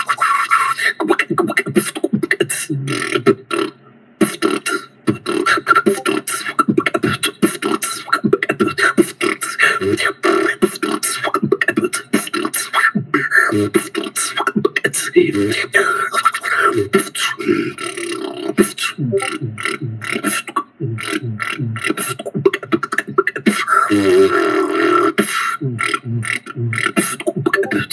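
Beatboxing: one person making quick, continuous vocal drum sounds in a steady, fast rhythm.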